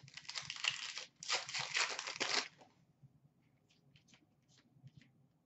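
A 2017-18 Upper Deck Series 1 hockey card pack wrapper being torn open and crinkled in two pulls, each about a second long, with a brief pause between them. A few faint soft clicks follow as the cards are thumbed through.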